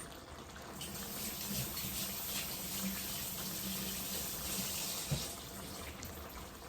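Steady rushing hiss like running water, swelling about a second in and easing near the end.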